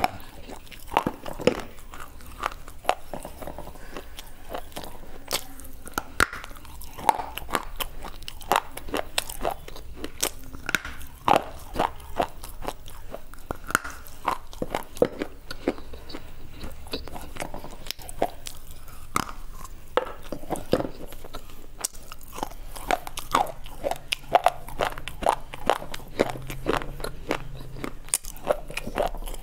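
Close-miked biting and chewing of brittle slate pieces: sharp crunches and snaps at irregular intervals, coming thick and fast toward the end.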